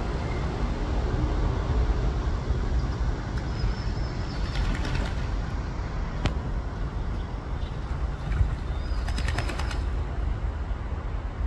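Mallard splashing and flapping as it bathes in shallow water, with quick runs of splashes about halfway through and again near the end, over a steady low rumble.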